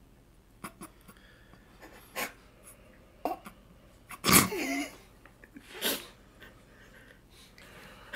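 A person's sudden loud burst of breath, sneeze-like, about four seconds in, followed by a shorter breathy burst about a second and a half later, over a quiet room with a few small clicks.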